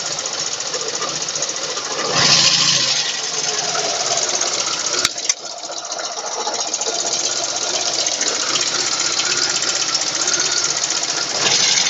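VAZ-2109 engine running with a fast, even ticking from the valve train: valve knock, the sign of valves in need of adjustment. It gets louder briefly about two seconds in and again near the end, and there is a sharp click about five seconds in.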